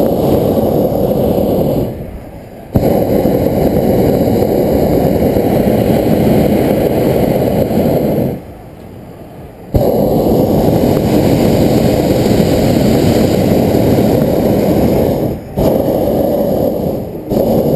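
Hot air balloon's propane burner firing in long blasts, heard close up from the basket. The blasts cut in suddenly and are separated by short breaks: one of about two seconds, then two of about six seconds each, then shorter bursts near the end. The burner is heating the envelope as the balloon takes off and climbs.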